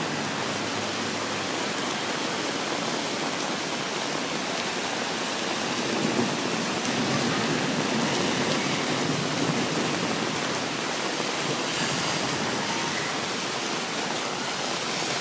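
Heavy rain pouring down in a dense, steady hiss, swelling a little about six seconds in.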